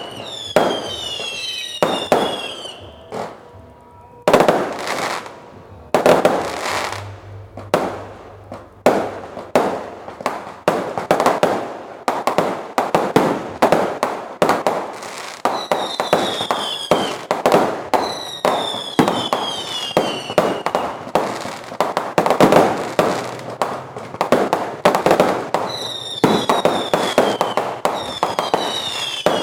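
Fireworks going off: a rapid run of sharp bangs and crackles that thickens into a near-continuous barrage about twelve seconds in, with whistling fireworks sounding several times in tones that slide downward.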